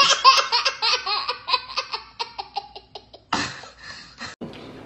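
A young girl laughing hard: a fast run of high-pitched laughs that trail off over about three seconds, then a breathy gasp.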